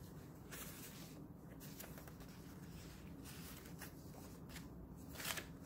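Faint rustling and brushing of paper as the pages and paper pockets of a handmade junk journal are handled and turned, in a few short swishes.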